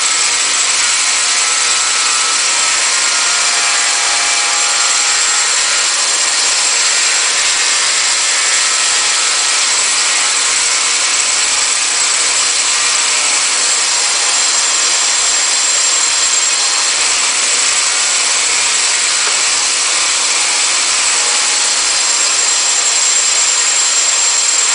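Belt grinder running with a 240-grit belt, a hardened steel knife blade held against it: a steady grinding hiss with a high whine on top. The cutting edge is being ground thinner after heat treating.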